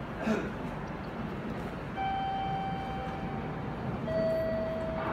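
Shinkansen station platform hum with two long steady electronic tones about two seconds in: a higher note held for about two seconds, then a lower note for about a second.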